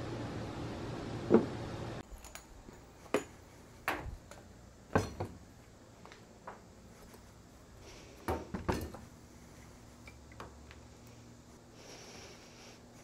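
A steady hiss with one sharp knock, then a run of separate knocks and clunks of metal being handled: an aluminium pressure-cooker pot and lid set about on a steel desk.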